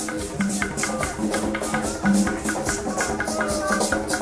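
Live street-stage percussion music: hand drums and rattling shakers keeping a steady, even beat over low sustained notes.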